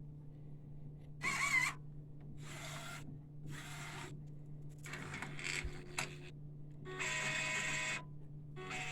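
1390 UV printer running a head-cleaning cycle: a series of short motor whirs, each under a second to about a second and a half long, some with a wavering whine and one with a steady whine near the end, over a steady low hum.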